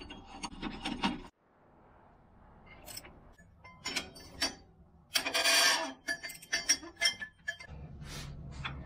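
Metal tools being worked at a Polaris RZR 1000's primary clutch: scraping and clinking as a clutch puller is threaded into the clutch by hand and a wrench is brought up to it. The loudest sound is one rasping scrape a little past halfway, with scattered clicks around it.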